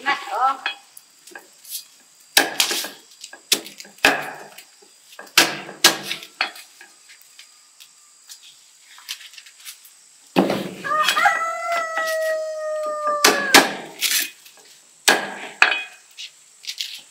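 A rooster crows once, a long call of about three seconds past the middle. Before and after it come scattered sharp knocks and rips as fresh corn cobs are husked and chopped with a knife on a wooden chopping block.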